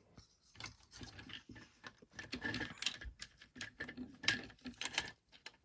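Hard plastic parts of a toy robot figure and its add-on kit being handled, with irregular small clicks and light knocks as pieces are pressed and shifted.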